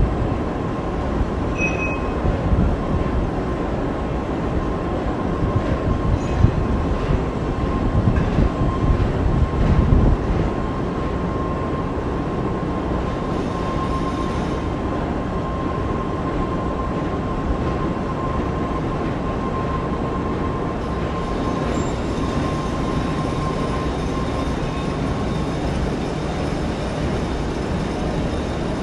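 Hitachi Seiki CNC turning center running: a steady mechanical rumble with a thin whine held at one pitch. The rumble is rougher and louder from about two to ten seconds in, and the whine fades out near the end.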